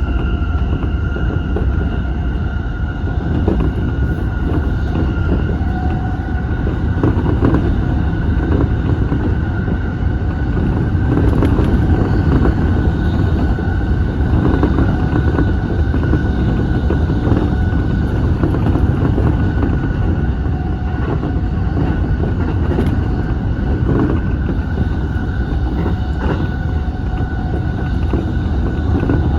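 Electric commuter train running at speed, heard from inside the lead car: a steady rumble of wheels on rail with a steady high whine and a few scattered clicks.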